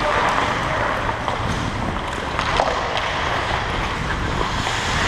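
Hockey skates scraping and gliding on rink ice, with air rushing over a helmet-mounted camera's microphone as the wearer skates. A few short sharp clicks sound over it, the loudest pair a little past the middle.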